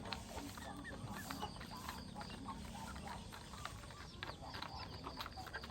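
Flock of chickens feeding, with overlapping clucks and short chirps and many quick sharp taps of beaks pecking at the feed.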